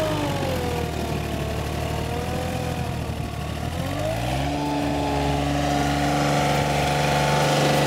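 John Deere 3215B fairway mower's Yanmar 3TNE82A three-cylinder diesel engine running as the mower drives off. Its pitch drops in the first second, stays lower, then climbs back about four seconds in and holds steady.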